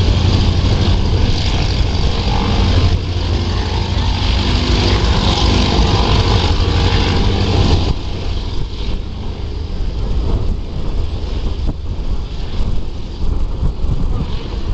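An engine running steadily, with a strong low hum, mixed with wind noise on the microphone. The engine sound drops in level about eight seconds in.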